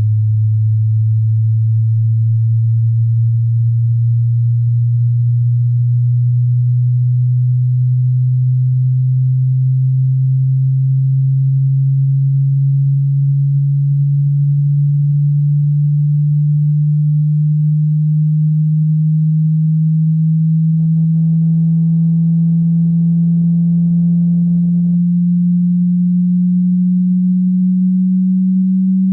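A low, pure sine test tone slowly and steadily rising in pitch: a frequency sweep for a hearing test.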